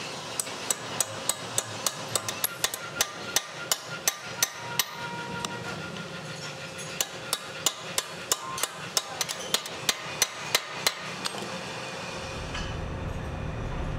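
Light hammer taps on a steel ball bearing, driving it into its cast-iron housing on a fan-pump bracket: two runs of sharp metallic taps at about three a second, with a pause of a second or so between them.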